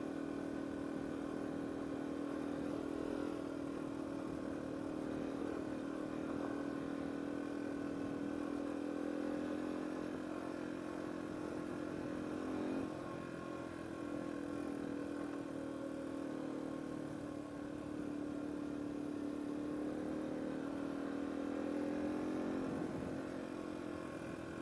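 Yamaha TW200's single-cylinder four-stroke engine running as the motorcycle rides along a dirt track at an even pace. The note dips briefly about halfway through, then climbs slowly and falls off again near the end.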